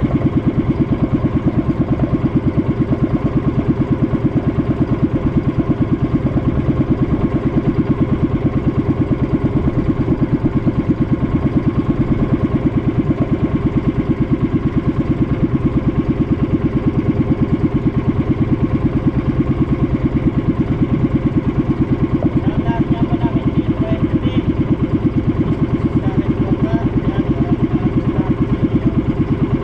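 A boat engine running steadily at a constant speed, with a fast, even pulse from its firing strokes.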